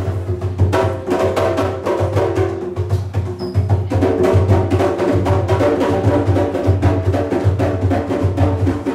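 Djembe hand drums played in a fast, steady rhythm, with deep bass strokes and sharp slaps.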